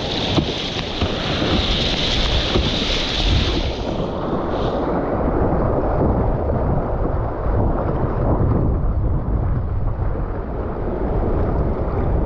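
Rushing, splashing whitewater of a rain-swollen river rapid around an open canoe: a continuous noisy rush with heavy low buffeting of wind on the microphone. The bright hiss is stronger for the first few seconds, then eases.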